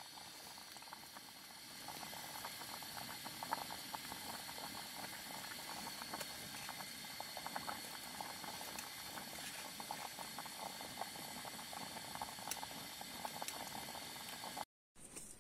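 Water bubbling at a rolling boil in a small pot, a dense steady crackle that grows louder about two seconds in and breaks off for a moment near the end.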